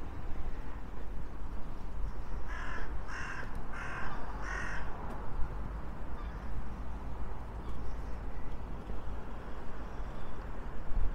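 A crow cawing four times in quick succession, over a steady low rumble of wind on the microphone.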